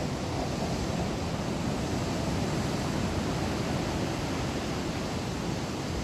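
Sea waves breaking over and washing around a rocky shore, a steady rushing surf with no separate crashes.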